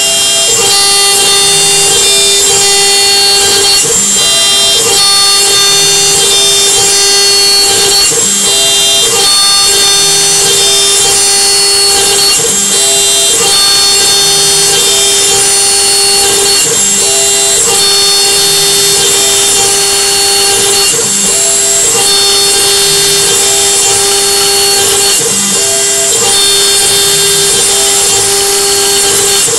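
CNC router spindle running at speed, its end mill cutting a metal plate: a steady whine of many held tones, with short pulses recurring every second or so.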